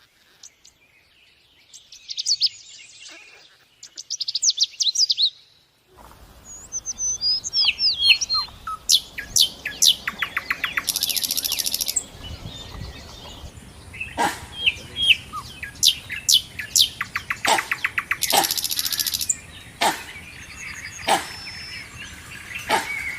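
Birds chirping and calling: bursts of quick, high chirps, then about six seconds in a busier stretch of many short calls and rapid high trills.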